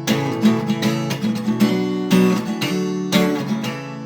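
Acoustic guitar strummed in a steady rhythm, ringing chords between the sung lines of a song.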